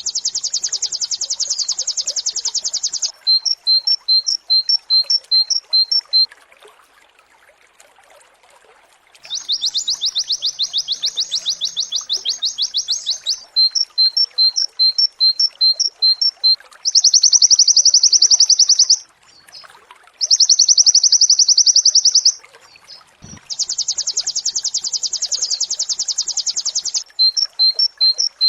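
White-eye (pleci) singing its rapid-fire 'nembak' song: high, very fast trills of two to four seconds each, alternating with runs of short separate chirps at about three a second. A pause of about three seconds comes a quarter of the way in.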